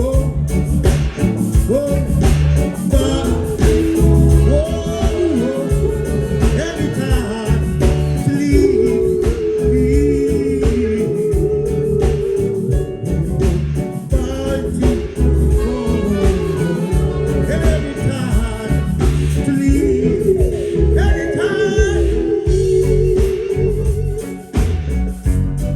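Live reggae band playing: a steady bass and drum groove under a long-held lead melody line with vibrato.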